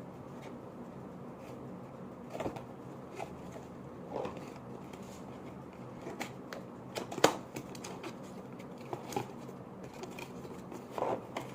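Packaging and a small plastic mini tripod being handled and unboxed: scattered rustles and light clicks, with one sharper click about seven seconds in, over a steady low hum.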